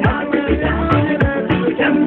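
Music playing with a steady beat: a bass line and low drum hits that drop in pitch, under melodic instruments.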